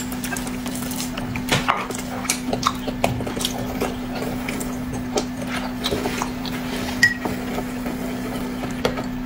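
Scattered light clicks and taps of dishes and utensils with eating noises, over a steady low hum.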